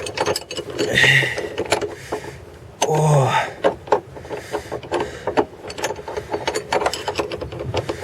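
Ratchet wrench clicking in quick irregular runs as a nut on the front strut's top mount is loosened.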